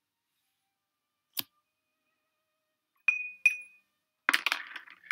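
Paintbrushes clinking against a hard container: one light click, then two ringing taps about a third of a second apart, then near the end a rattle of clinks as a brush is picked out from among the others.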